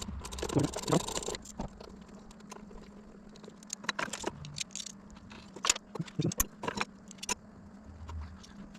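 Light metallic clinking with scattered sharp clicks and knocks, over a steady low hum. A rush of noise fills the first second or so.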